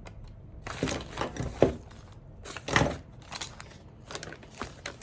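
Bubble wrap crinkling and rustling in several short bursts as old metal gun parts are unwrapped and handled, with light metallic clinks from the parts.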